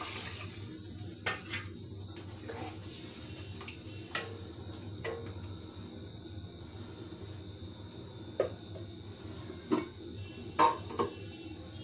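Scattered clinks and knocks of kitchen utensils against pots and pans, about nine in all, the loudest coming close together near the end, over a low steady hum.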